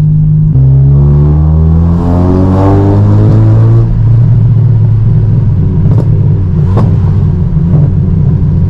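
Mk1 Ford Focus engine through a loud aftermarket exhaust, heard from inside the car as it pulls away while still cold. The revs rise for about three seconds, drop at a gear change, and then settle into a steady low drone, with two sharp clicks partway through.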